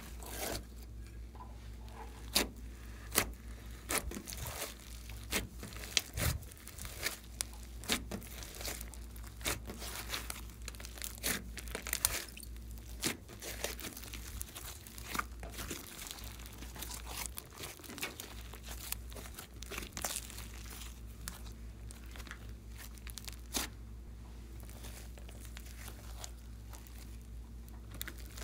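Slime being squished and stretched by hand, giving irregular sticky crackles and pops.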